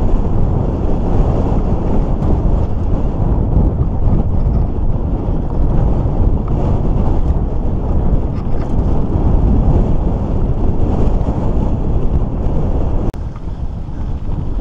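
Wind buffeting the microphone and the rumble of mountain-bike tyres on a gravel trail during a fast ride; near the end it suddenly drops to a quieter level.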